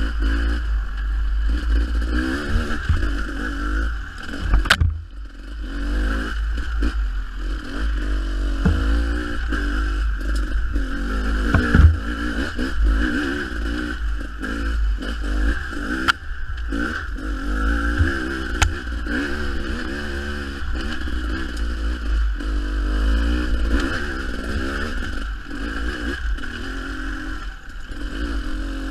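Dirt bike engine revving up and down as it rides a rough trail, its pitch rising and falling with the throttle. Wind rumbles on the microphone throughout, with scrapes and a few sharp knocks from the bike over the ground, the clearest about five seconds and sixteen seconds in.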